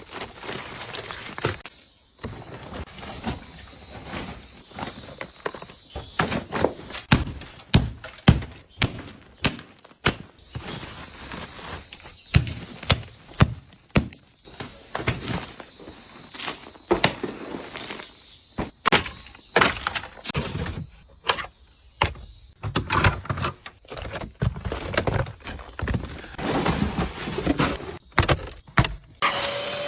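A quick succession of short workshop sounds: knocks, thunks and clatter of car parts and tools being handled, with abrupt changes from one short clip to the next.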